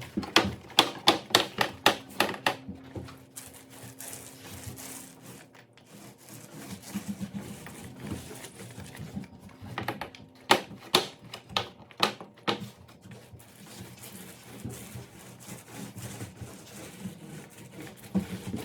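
Bursts of rapid sharp taps, several a second, in three main runs: near the start, about ten seconds in, and just after.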